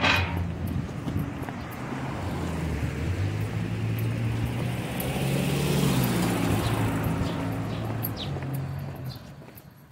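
A sharp tap, then a motor vehicle passing along the street: its engine hum grows louder to a peak about six seconds in and fades away near the end, with light footsteps on pavement.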